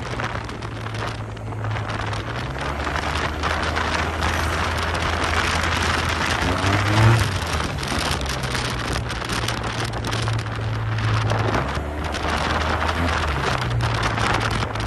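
Yamaha TMAX maxi-scooter's parallel-twin engine running at riding speed under a heavy rush of wind noise on the microphone, its low hum shifting up and down a few times with the throttle.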